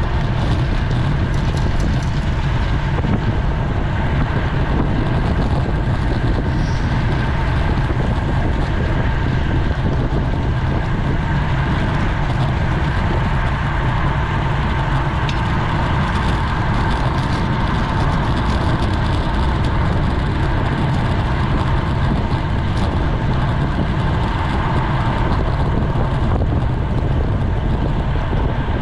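Steady wind rush on a GoPro microphone while riding a road bike at speed, with tyre and road noise underneath and no letup.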